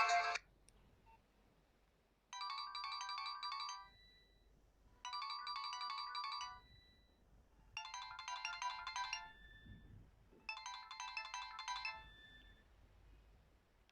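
Nokia 2630 mobile phone playing a ringtone: a short phrase of high electronic notes repeated four times, each about a second and a half long, with short pauses between. A fuller tone cuts off just at the start.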